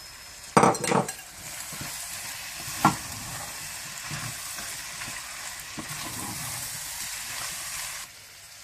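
Chopped tomatoes going into a pot of spiced minced meat frying in oil, with a few loud knocks early on and a sharp click near three seconds. A steady loud sizzle follows as the mixture is stirred, then cuts off abruptly about a second before the end.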